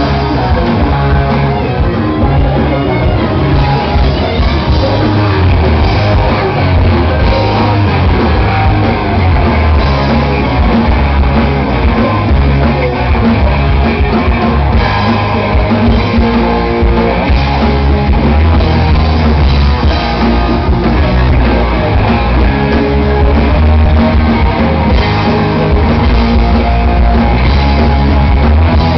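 Live rock band playing loud, with distorted electric guitars, bass and drum kit, and some shouted vocals, heard through a camera's microphone with the low end heavy.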